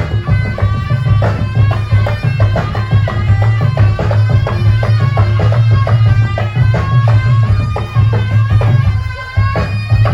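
Live Javanese barongan/jaranan ensemble music: quick, steady drum strokes under a wavering, high-pitched wind melody, over a strong low drone.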